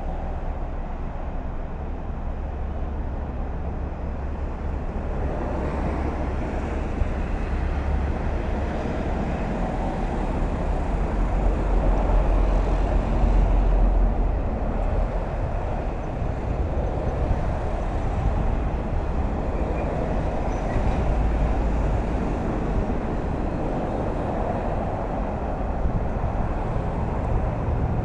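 Steady toll-road traffic noise: a continuous deep rumble with tyre hiss, swelling louder a little before halfway and then easing back.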